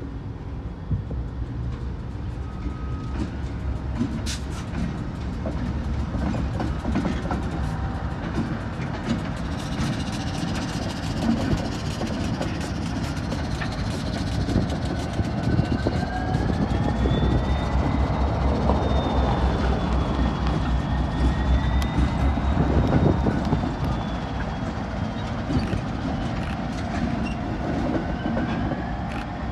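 Pacific National NR and AN class diesel-electric locomotives passing light engine as they run around their train: a heavy diesel rumble that grows louder as they draw near. Wheels click over the rail joints, and a high wavering whine rises and falls through the middle.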